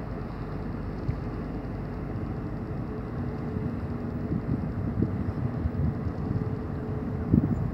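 Harbour tug's diesel engines droning steadily with a low hum as the tug passes close by. Irregular low buffeting of wind on the microphone grows louder in the second half.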